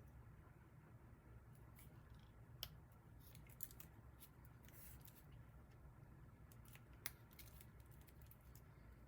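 Near silence: a low steady hum with a few faint, scattered clicks, the sharpest about two and a half seconds in and again about seven seconds in.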